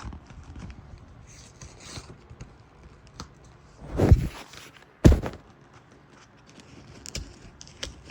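A mailer package being torn open and handled by hand: small scrapes and clicks, a short loud rush of tearing noise about four seconds in, then a sharp knock a second later.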